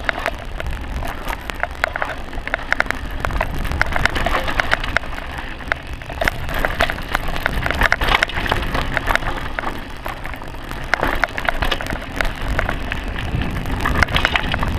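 Rear-suspension mountain bike rattling and clattering over a rough, rocky downhill trail, with dense irregular knocks and tyre noise. A low rumble from wind on the mic runs underneath.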